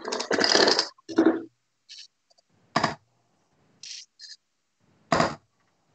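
Steel-tip darts thudding into a Winmau Blade 5 bristle dartboard: two sharp impacts about two and a half seconds apart, with fainter short knocks between. A louder burst of noise comes at the start.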